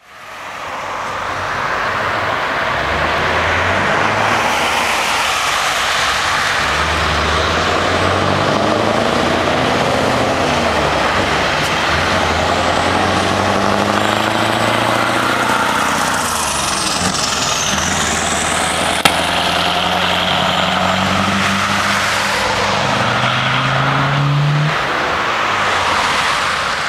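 Scania R500 truck's V8 diesel engine pulling away and accelerating through the gears: the engine note climbs, drops back at each shift and climbs again, over steady road and tyre noise.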